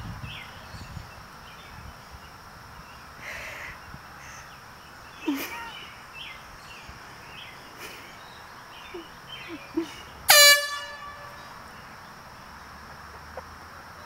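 Air horn blasting once, a single short, loud honk at one steady pitch about ten seconds in.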